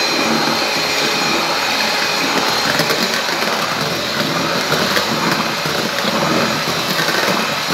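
Electric hand mixer running steadily, its beaters whisking a runny cake batter in a stainless steel bowl.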